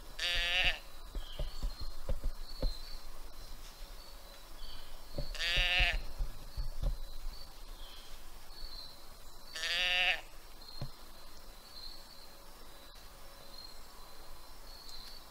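Handheld deer call sounding three drawn-out doe bleats, about five seconds apart, each bending up and then down in pitch. Light knocks and rustles in the leaves come between the first two bleats.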